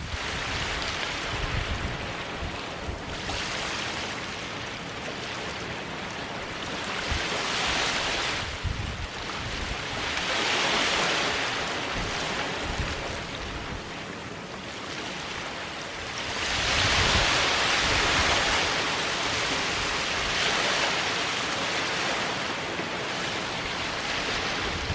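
Small waves breaking and washing up a sandy beach, swelling and easing in surges every few seconds, the largest about two-thirds of the way through. Low wind buffeting on the microphone underneath.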